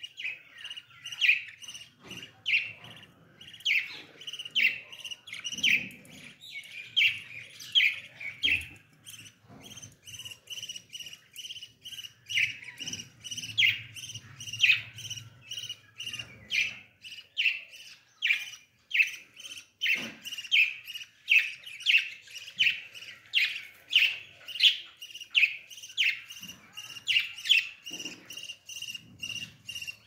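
Caged budgerigars chirping, short repeated calls about one or two a second, over a steady high-pitched trill.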